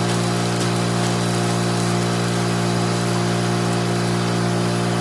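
An engine idling at a constant speed, a steady, even drone that does not change.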